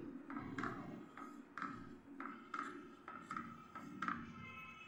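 Wooden spatula stirring and scraping milk and milk powder in a non-stick frying pan, a rhythmic scrape about two or three times a second.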